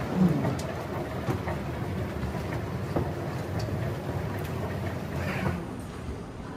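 Steady low rumble of a moving vehicle, with scattered clicks and knocks; it eases a little near the end.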